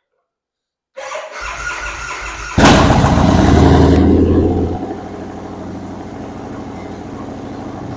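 1999 Excelsior-Henderson Super X V-twin motorcycle engine being started: the electric starter cranks for about a second and a half, then the engine catches loudly. After about two seconds it settles into a steady idle.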